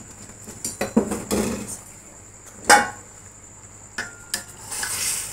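Steel cookware clattering as soaked rice is pushed off a steel dish into a cooking pot: a few light knocks, then one loud sharp clank about two and a half seconds in and a ringing knock a little later. A short hiss comes near the end.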